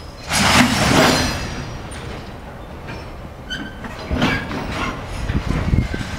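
Freight-wagon coupling work at the joint between a tank wagon and a container flatcar: a loud burst of hissing and squeal lasting about a second near the start, then shorter bursts about four seconds in and again near the end, over a low rumble.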